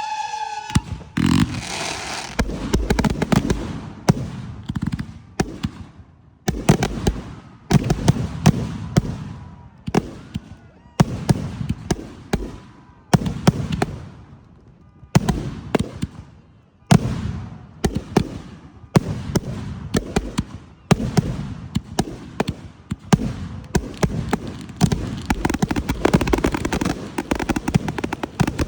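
Fireworks display: rapid barrages of sharp bangs and booms, one after another, with short lulls about halfway through.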